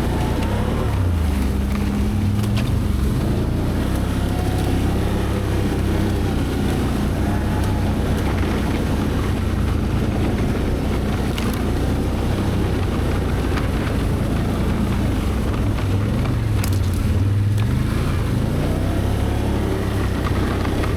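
V-twin ATV engine running at trail speed, its pitch rising and falling with the throttle, with a few short sharp ticks.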